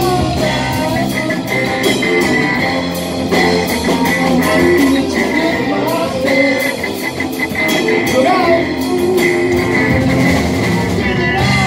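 Live rock band playing: a male lead vocal over electric guitars, bass guitar and a drum kit.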